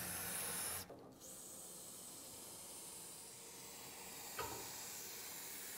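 Aerosol can of multi-spray lubricant hissing as it sprays a car lift's steel cables: a short spray of under a second, then after a brief break a longer, fainter one, with a small click about four and a half seconds in.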